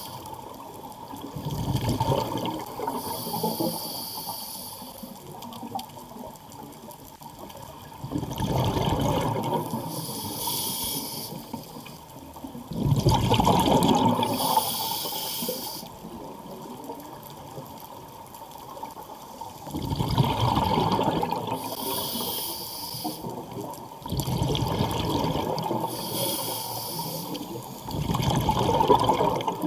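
Scuba diver breathing through a regulator underwater. A hissing inhale alternates with a louder bubbling exhale, about five breaths spaced six to seven seconds apart.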